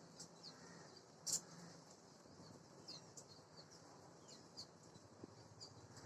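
Black drongos calling faintly: scattered short, high chirps and quick gliding notes, with one sharp, louder call about a second in.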